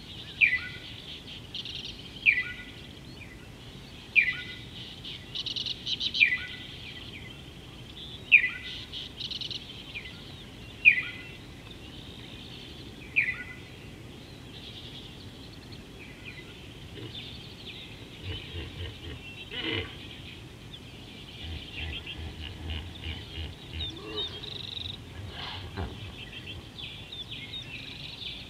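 A bird calling over and over, each call a quick falling whistle with a short lower note after it, about every two seconds through the first half. Softer mixed bird chirping follows, with a faint low rumble and a couple of brief clicks in the second half.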